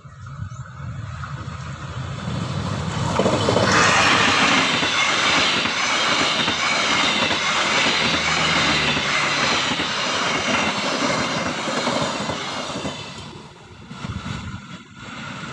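A locomotive-hauled passenger train passing close by at a level crossing: the noise swells as it approaches, then the coaches' wheels rolling on the rails stay loud for about ten seconds with a high ringing over them. Near the end the sound drops off as the train moves away.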